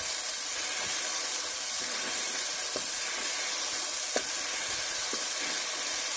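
Masala paste of onions, green chillies and ground spices sizzling steadily in oil in a metal kadhai, the masala frying through. A metal ladle stirs it, clicking against the pan a few times.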